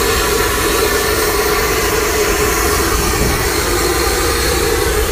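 A jet aircraft's engines running, steady and loud.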